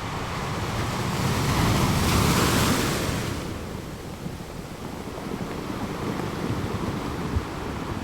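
Sea waves on the shore: one wave swells and breaks about two seconds in, then washes out, over a steady low rumble of surf.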